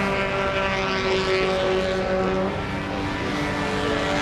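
1933 Talbot 105 Brooklands team car's straight-six engine running at speed on track, a steady engine note that drops in pitch about three seconds in.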